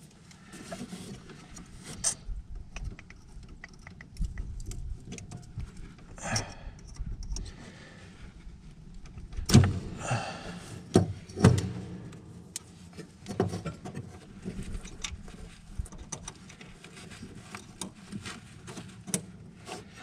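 Hands working with tools and parts: scattered clicks, taps and rattles with short rustling scrapes, the loudest knocks coming about ten and eleven seconds in.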